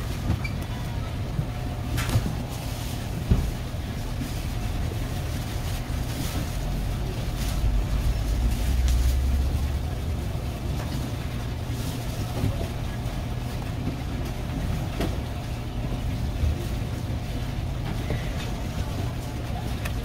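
Knife slicing red seabream on a cutting board, with a few light knocks of the blade on the board, over a steady low hum.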